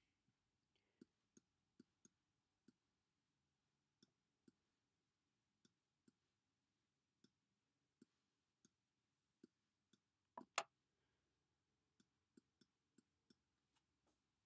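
Faint, irregular clicks of a stylus tapping on a tablet while handwriting, with a louder double click about ten and a half seconds in.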